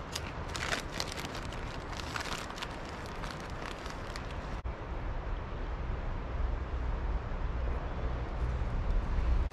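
Wind buffeting the microphone, a low rumble that grows stronger in the second half. Near the start there are a few crisp crunches from chewing Flamin' Hot Cheetos.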